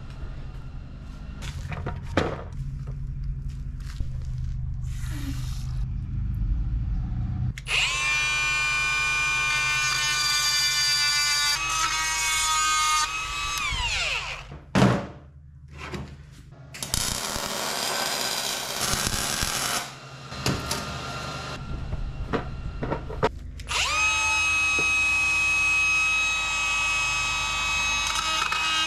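A handheld electric power tool running in several long runs, its motor whine holding steady and then falling in pitch as it winds down about thirteen seconds in. A sharp knock comes about halfway through.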